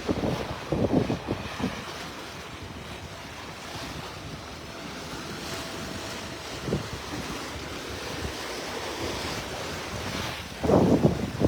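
Wind buffeting the microphone over the steady rush of water and waves past the hull of a sailing yacht making about 10 knots in 18 to 20 knots of wind. The wind noise comes in louder gusts near the start and again near the end.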